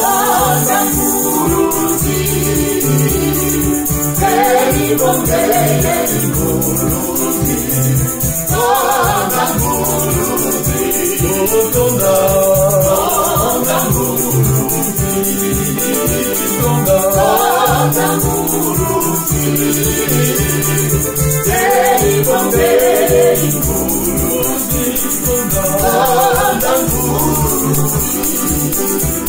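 Gospel hymn in Kikongo sung by a man and a woman, accompanied by a Yamaha PSR-S670 electronic keyboard and a pair of maracas shaken steadily.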